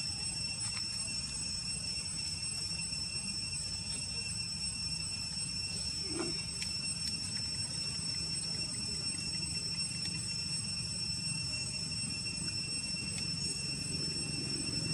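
Steady insect chorus, several high, unbroken shrill tones held at once, over a low steady rumble. A few faint ticks, and one small brief sound about six seconds in.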